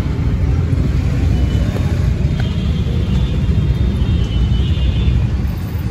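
Steady low rumble of open-air market background noise, with no nearby voices.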